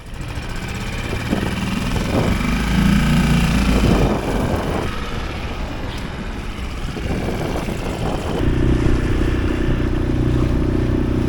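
Small boat outboard motor running, its pitch shifting as it revs in the first half, then holding steady at a higher, louder speed about eight and a half seconds in.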